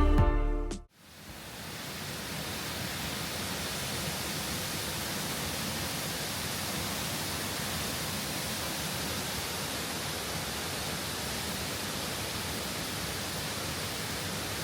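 Steady rush of a waterfall's falling water, fading in about a second in as background music ends.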